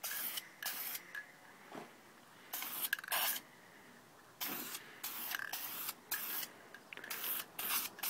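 Aerosol spray-paint can spraying in a series of short hisses, each under a second long, with brief pauses between them.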